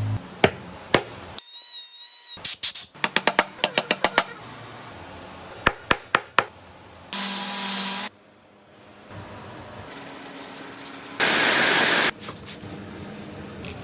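A string of short woodworking shop sounds: sharp taps and knocks, some in quick runs, and two short bursts of steady machine noise, the louder one near the end.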